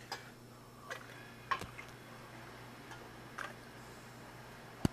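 A metal ladle clinking and tapping now and then against a stainless steel pot and a steel cup as soup is ladled from one into the other, with a sharper click near the end.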